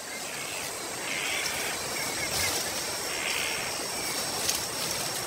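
Rainforest ambience: a steady hiss with a faint, high, even tone, and two short calls about one and three seconds in.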